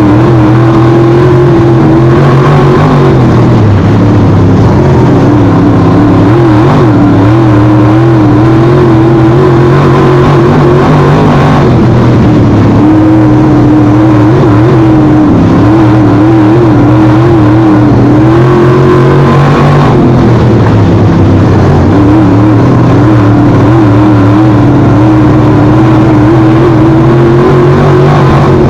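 Race car engine running hard at speed, very loud. Its pitch wavers and dips briefly about every eight seconds before climbing again.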